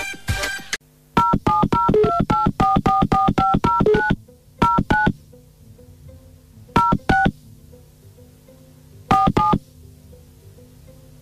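Touch-tone telephone keypad dialing: a quick run of about a dozen two-pitch beeps, then pairs of beeps a couple of seconds apart, over a faint steady hum. A brief snatch of music opens it.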